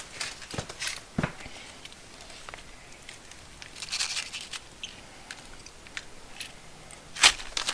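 Crinkling and rustling of plastic packaging with light clicks as small packs of nuts and bolts are handled and set down. A sharper click comes near the end.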